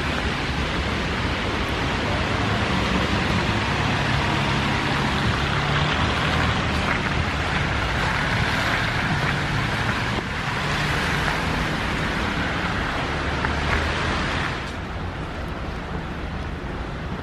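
Road traffic: cars passing in a steady hiss over a low engine rumble, easing a little quieter near the end.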